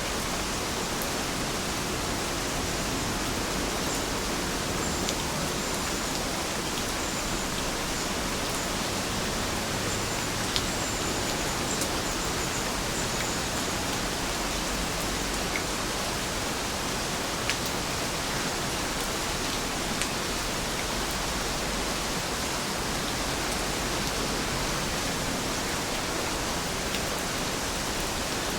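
Steady, even rain falling, with a few sharp ticks scattered through it.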